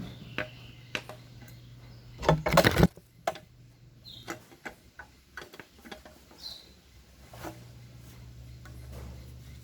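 Metal tools and engine parts being handled on a workbench: scattered clicks and knocks, with a loud clatter about two and a half seconds in, over a low steady hum.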